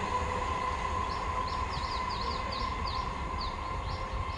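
A receding EMU local train: a low rumble with a steady whine over it. A bird gives a rapid run of short, falling chirps from about a second in.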